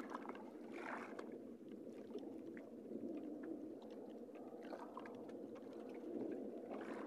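Faint water lapping against the hull of a small fishing boat, with a few light ticks and knocks.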